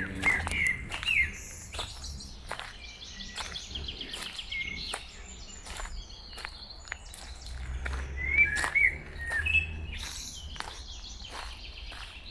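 Songbirds chirping and calling, with short whistled notes and a rapid trill, over irregular footsteps on a forest path.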